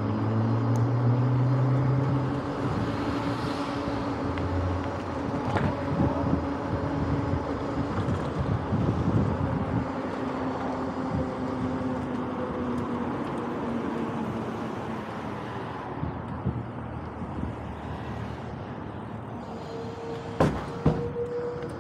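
Wind and road noise from a fast-moving electric bike, with cars passing close by in the neighbouring lane. A hum slowly falls in pitch as the bike slows, and two sharp knocks come near the end.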